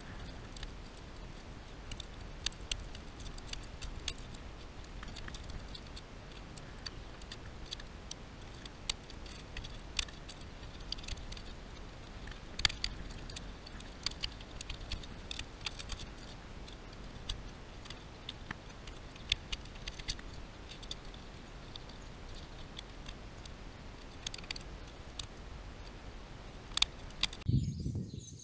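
Tin snips cutting and crimping the ragged top edge of a flexible metal flue liner: irregular sharp metallic clicks, sometimes several in quick succession, over a steady low hiss. A louder low rumble comes just before the end.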